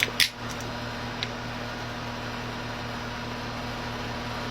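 A sharp click about a quarter second in and a couple of fainter ticks over a steady low electrical hum and hiss.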